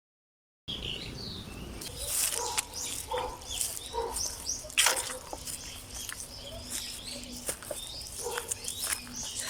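Small birds chirping repeatedly, starting abruptly after a moment of silence, with a sharp click about five seconds in and a faint steady hum in the second half.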